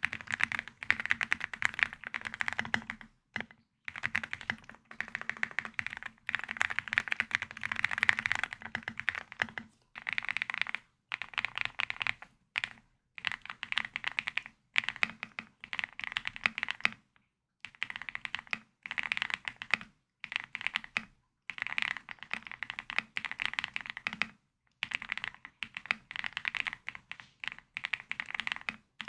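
Typing on a Heracles TKL mechanical keyboard: quick runs of keystrokes, each lasting a second or two, broken by brief pauses.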